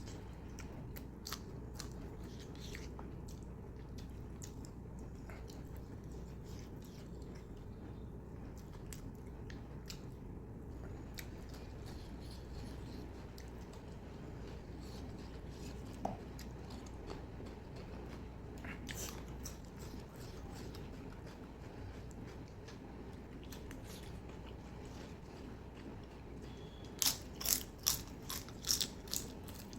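Close-miked chewing and biting sounds of a person eating mutton curry and roti, with scattered soft clicks over a steady low hum. Near the end, a quick run of sharp clicks is the loudest part.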